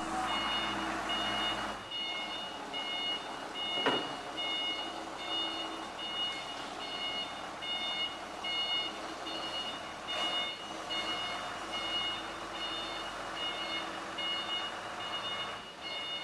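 10-tonne UN Forklift diesel forklift running, its warning beeper sounding a short high beep over and over, a little under two beeps a second. There is a single knock about four seconds in.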